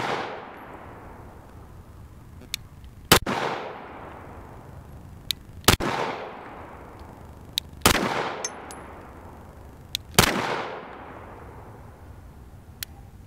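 Springfield XDm 5.25 pistol fired in slow aimed fire: four single shots about two and a half seconds apart, each one echoing away.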